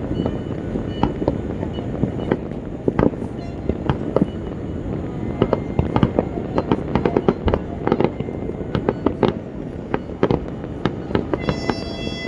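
Many fireworks and firecrackers going off across a city: a continuous rumble with a dense crackle of sharp bangs, thickest about six to nine seconds in.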